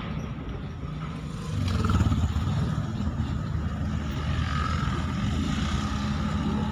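An engine running with a steady low rumble, growing louder about a second and a half in.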